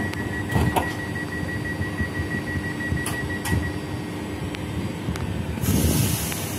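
Z 50000 Francilien electric train at the platform, closing its doors. A steady high warning tone sounds, then stops a little before four seconds in. There are knocks as the doors shut and lock, a low steady hum, and a short hiss near the end as the train starts to pull away.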